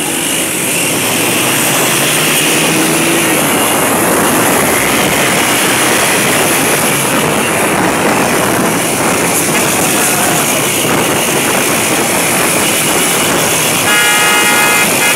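Many motorcycles riding together at speed, a loud, dense, steady din of engines. A horn starts sounding near the end and keeps on.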